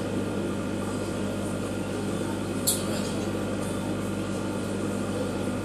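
Steady low electrical hum from aquarium equipment, with one brief sharp tick about two and a half seconds in.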